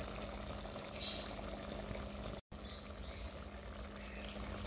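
Chicken pieces cooking in their own juices in a glass pot, a steady bubbling simmer over a steady low hum. The sound breaks off for an instant about halfway through.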